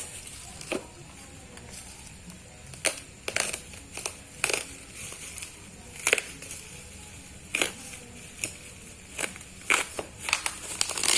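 Parcel packaging being opened by hand, crackling and crumpling in irregular sharp bursts.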